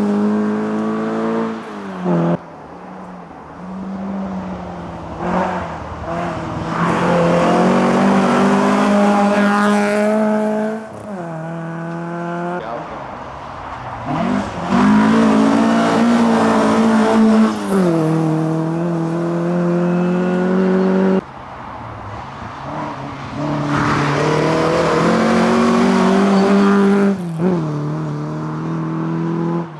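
Historic rally cars running flat out on a snowy forest stage: loud engine notes climb in pitch and drop back sharply at each gear change, several times over, as one car pulls away and the next comes up.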